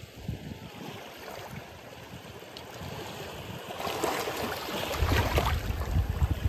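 Small sea waves washing in over shore rocks, swelling louder about four seconds in as a wave breaks over the rocks.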